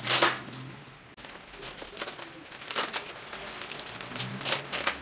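Padded nylon camera-bag dividers being handled: rustling, with three short rasps like hook-and-loop (velcro) fasteners pulled apart, one at the start, one near three seconds and one near four and a half seconds.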